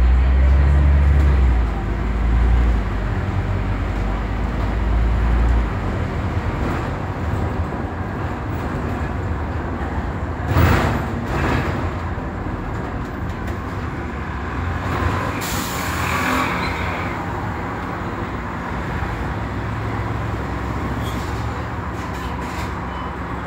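Scania Omnidekka double-decker bus driving along, heard from the upper deck: the engine pulls hard and low for the first few seconds as the bus moves off, then settles into a steady drone. A brief loud noise about ten seconds in, and a short hiss of air about sixteen seconds in.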